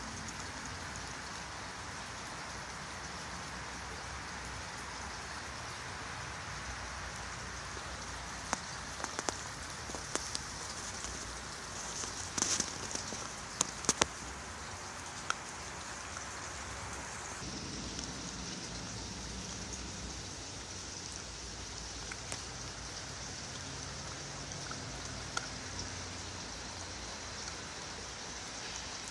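Steady rain-like hissing background noise, with a scattering of short clicks and ticks around the middle.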